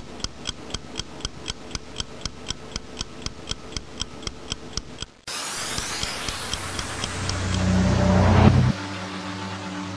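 Clock-ticking sound effect, about four ticks a second, stopping about five seconds in. Then a sudden loud rushing whoosh whose hiss sinks in pitch as a low rumble swells, cutting off abruptly near the end, followed by a held low chord of music.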